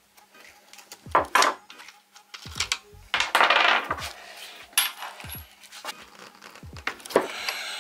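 Socket wrench on the scooter's axle nut, with a run of sharp metal clinks and knocks and a longer rasping stretch a little after three seconds in.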